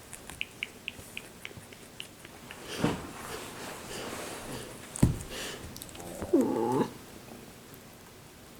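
Baby rabbits nibbling at wild greens with small soft clicks, about three or four a second at first, broken by two knocks. Just over six seconds in comes a short, bending, voice-like sound lasting about half a second.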